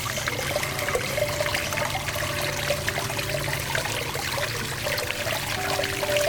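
Water trickling and splashing steadily from a homemade cement-and-jar garden fountain.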